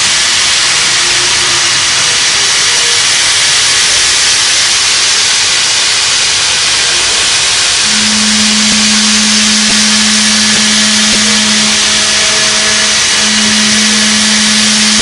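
A loud, steady hiss, with a steady low hum joining about halfway through and dropping out briefly once.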